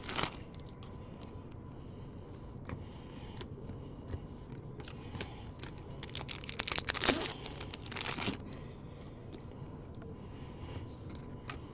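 A trading-card pack wrapper crinkling and being torn open by hand, loudest in a few spurts about six to eight seconds in, with quieter rustling and sliding of cards around it.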